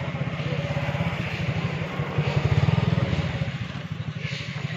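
A small engine running with a fast, even pulse, growing louder about halfway through and then easing off.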